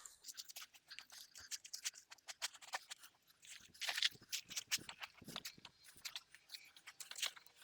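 Hands digging and sifting through potting soil in a container, making a run of faint, scratchy crackles and rustles.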